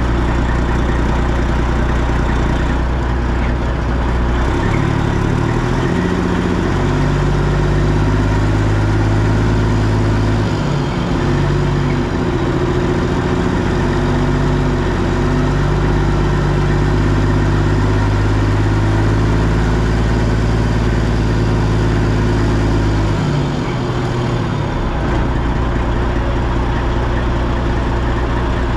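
Tractor-trailer's diesel engine running steadily, its engine note stepping up and down a few times.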